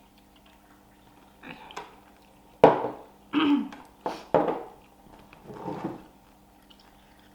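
Eating sounds while eating by hand: a series of short, separate mouth and food noises, the sharpest and loudest about two and a half seconds in.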